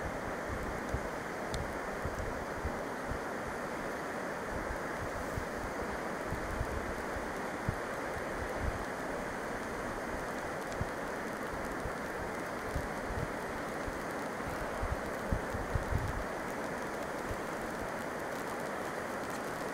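Steady rush of a mountain river flowing through a rocky gorge, with wind buffeting the microphone in low, uneven bumps.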